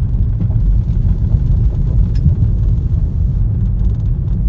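Steady low rumble of a car rolling slowly over a gravel drive, heard inside the cabin, with a few faint ticks.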